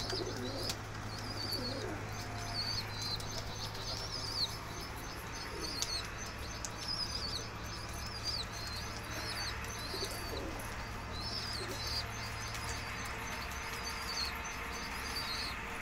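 Fancy pigeons cooing and flapping their wings in a courtship tussle, over a steady run of quick high chirps from small birds. A low steady hum underneath stops about three-quarters of the way through.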